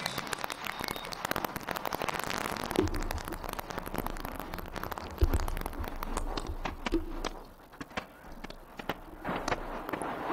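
Free-improvised experimental music for saxophone, trombone and electronics: a dense texture of crackling clicks and hiss rather than played notes, with low thumps about three and five seconds in. It drops quieter for a moment about three quarters of the way through, then thickens again.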